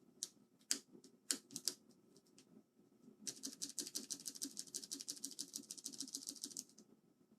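Small hard plastic clicks from mechanical keyboard keycaps being handled: a handful of sharp separate clicks, then a fast, dense run of clicking that lasts about three and a half seconds and stops abruptly.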